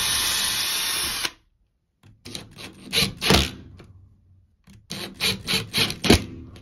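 A Ryobi cordless drill runs steadily for about a second boring a pilot hole in the wall, then stops. After a pause, a Ryobi impact driver drives screws through a metal towel-bar bracket in two spells of short, rapid hammering.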